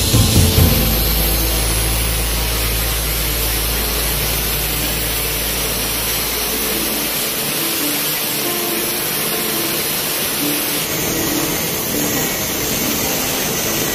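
Electric angle grinder with a cutting disc grinding through iron window bars, a steady, loud hiss of disc on metal.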